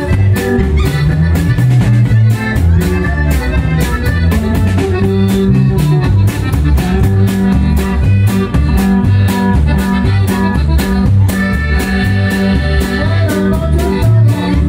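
Live norteño band playing loud, with electric guitar, a bass line stepping between notes and steady drum-kit beats; no singing.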